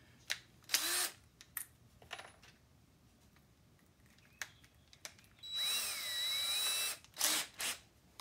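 DeWalt 20V Max cordless drill spinning in short trigger spurts, with one longer run of about a second and a half where its whine dips and rises in pitch, then two quick spurts near the end. A few light clicks fall between the runs.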